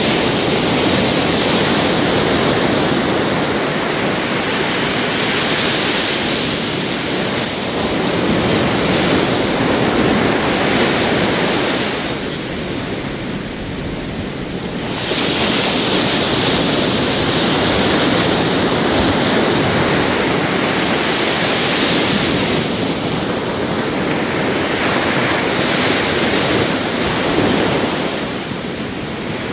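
Ocean surf: small waves breaking and washing up the beach in a continuous rush, easing off about halfway through and again near the end as the next waves build.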